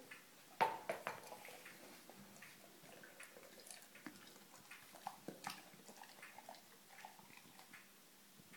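Dog chewing and mouthing a rubber Kong toy, with scattered clicks and knocks. The sharpest knock comes a little over half a second in.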